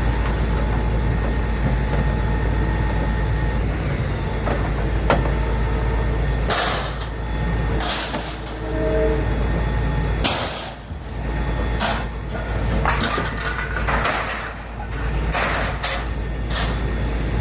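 Scrap metal pieces thrown into a pickup truck's bed: a run of clanging, clattering impacts starting about six seconds in and coming every second or so, over a steady low rumble.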